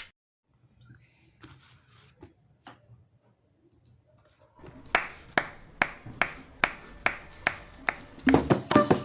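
Faint handling rubs and taps, then about halfway in a steady beat of sharp conga drum strikes starts, about two or three a second, and near the end the fuller tumbao pattern thickens with pitched instruments of the song joining in.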